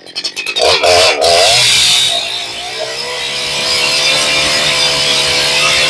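Holzfforma G288 90cc-class two-stroke chainsaw revved up from idle about a second in, then held at steady high revs as it cuts into a hardwood log. It is running rich on an untuned carburettor.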